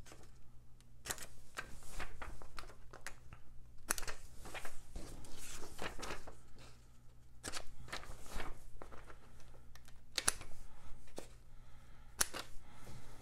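Hand-held pattern notcher snipping notches into the edges of paper pattern pieces: a series of sharp clicks at irregular intervals, with paper rustling between them.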